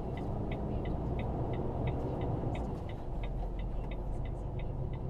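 Volvo FH truck on the move, heard from inside the cab: a steady engine and road rumble, with a light, regular ticking about three times a second over it.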